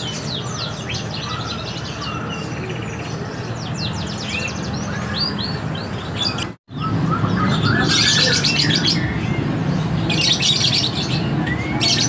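Caged songbirds, canaries among them, chirping and singing in quick high notes and fast trills over a steady low background din. The sound cuts out for a split second about halfway through, and dense buzzy trills follow.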